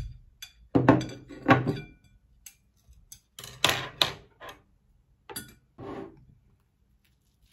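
Ceramic plates set down on a table with a few knocks and clinks about a second in, then a knife and fork clinking and scraping on a ceramic plate as salmon is cut, in short separate bursts.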